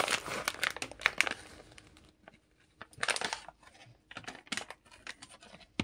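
A plastic snack bag crinkling and rustling in short bursts, with a few light clicks and taps in between.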